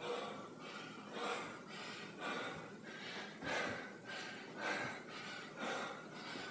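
A man breathing hard in repeated noisy puffs in a steady rhythm, the heavy breathing of a high-intensity interval exercise set.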